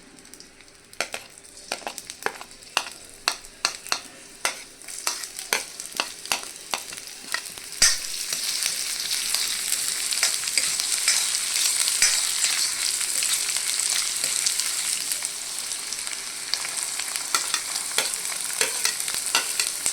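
Spatula clicking and scraping against a wok, then about eight seconds in chopped ginger, garlic and green chilies start sizzling in hot cooking oil and keep sizzling steadily as they are stirred.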